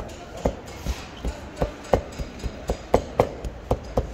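Large kitchen knife chopping cooked beef on a plastic cutting board: sharp knocks of the blade hitting the board, about three a second in an uneven rhythm.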